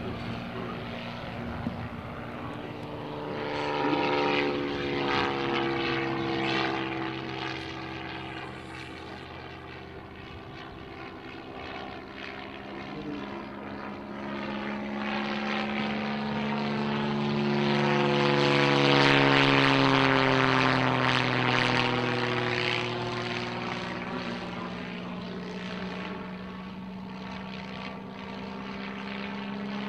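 Percival EP.9 single-engine propeller aircraft, with a Lycoming flat-six piston engine, flying display passes: its engine and propeller drone swells as it comes close, loudest about two-thirds of the way through, and drops in pitch as it goes by.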